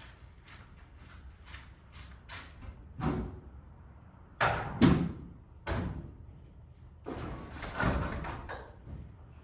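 Light footsteps, then a door being handled: a series of knocks and a slam, the loudest about five seconds in.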